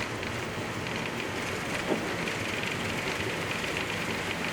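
Flight-deck noise of a Boeing 737-800 on its takeoff roll at takeoff thrust: the steady roar of its CFM56 engines mixed with the rumble and clatter of the wheels running down a wet runway. There is a single thump about two seconds in.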